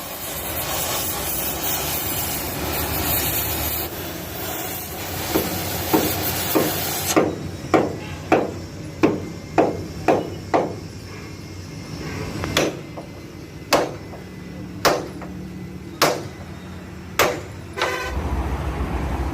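A steady hiss for the first several seconds, then a run of hammer blows: about two a second at first, then slower single strikes roughly a second apart.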